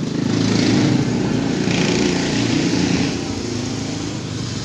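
Rusi Rapid 150 scooter's 150 cc single-cylinder engine running.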